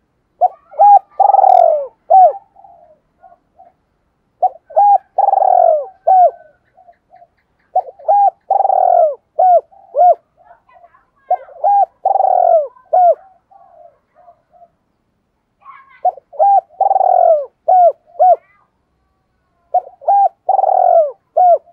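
Spotted dove cooing its song, one phrase repeated six times every three to five seconds. Each phrase is a couple of short coos, one long drawn coo, then short trailing notes: the 'hai hậu' (two-tail) call style that Vietnamese dove keepers use as a decoy call.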